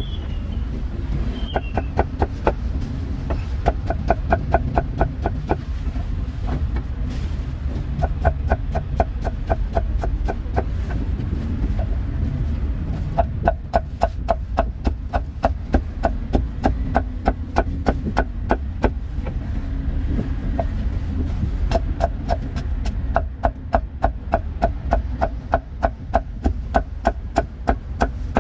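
Cleaver chopping meat on a chopping block, in runs of quick, even strokes about three a second with short pauses between the runs.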